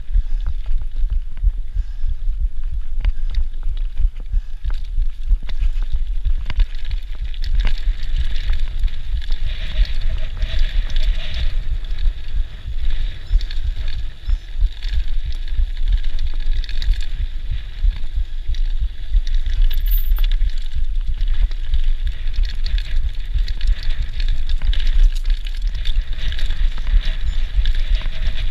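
Mountain bike ridden over a rough dirt trail, heard from the rider's own bike: a constant low rumble with dense rattling and clicking from the bike over the bumps.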